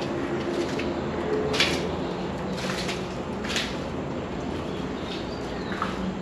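Footsteps crunching through dry fallen leaves and snapped branches, about one step a second, over a steady low background hum.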